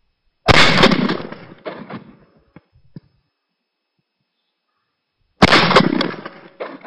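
Two shotgun shots, about five seconds apart, each ringing out for about a second after the blast.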